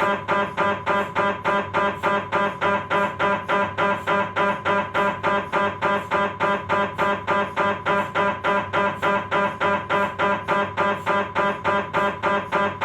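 Philips 1.5-tesla MRI scanner running a sagittal STIR sequence: the gradient coils beat out a steady, even train of loud buzzing knocks, about three and a half a second, each carrying a strong humming tone.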